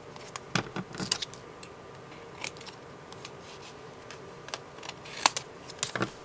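A stiff sheet of scrapbook paper covered in glued book paper rustling and crinkling in short, irregular crackles as it is handled and turned over.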